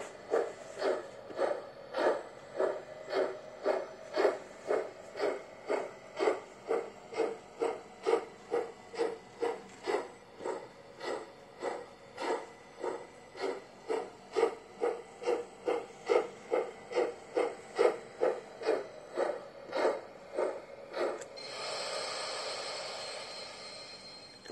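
Steam locomotive chuffing sound effect running with an N scale steam tank locomotive model: an even beat of about two chuffs a second. Near the end the chuffs give way to a steady hiss of steam that fades away.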